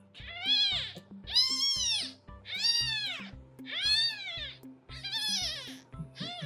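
Newborn kitten, about three days old, meowing loudly: five high calls about a second apart, each rising and then falling in pitch.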